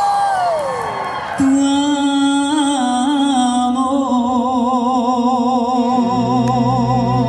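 A string band playing live: a long held high note slides down and breaks off about a second in, then a new long note is held and begins to waver, and a low bass note comes in near the end.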